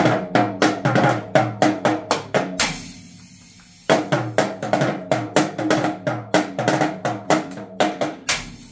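Child's toy drum kit with plastic drums being played loud with sticks: quick runs of hits on the drums, about four or five a second, each run ending on a cymbal crash, with a pause of about a second near the middle.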